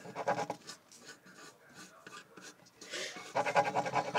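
Pencil scribbling on paper in quick short strokes, louder and denser near the end.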